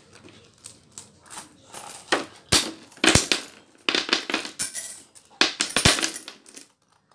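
Small metal coins tipped out of a purse onto a hard table top, clattering and jingling as they land and spin, in three pours about two and a half, four and five and a half seconds in.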